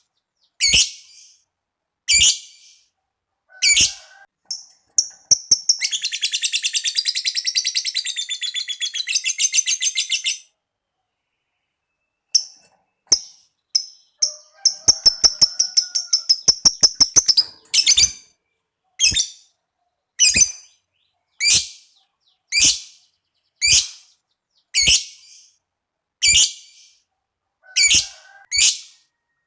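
Lovebirds calling: shrill single squeaks repeated about once a second, broken by two long, rapid chattering trills, the sustained 'ngekek' chatter that lovebird keepers prize, in the middle.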